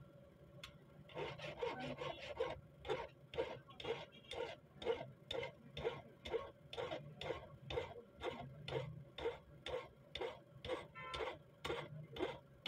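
Flat hand file filing a small steel rifle ejector down thinner, in a regular back-and-forth scrape of about three strokes a second that starts about a second in.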